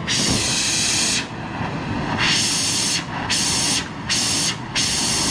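OTOCH OTC-W300-115 oxy-LPG brazing torch burning with an oxygen-fed blue flame: a steady low rushing of the flame, broken by five bursts of loud high hiss of gas, each half a second to a second long.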